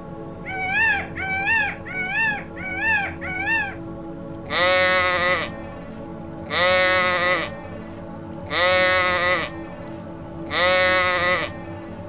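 An animal calling repeatedly: five short, high, arched calls in quick succession, then four longer calls about two seconds apart.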